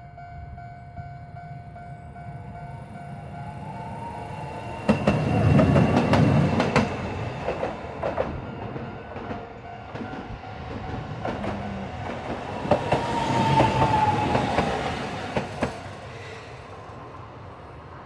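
Level-crossing warning signal sounding steadily while Toden Arakawa Line trams pass, with two loud passes about five and thirteen seconds in. The wheels clatter and click over the rail joints and crossing, and a whine rises and falls around each pass.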